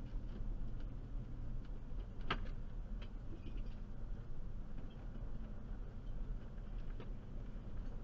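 Ford E-150 van driving slowly up a gravel dirt road, heard from inside the cab: a steady low rumble of engine and tyres, with scattered clicks and knocks, the sharpest about two seconds in.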